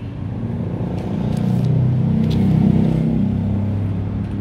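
Steady low engine hum that grows louder around the middle and eases off toward the end.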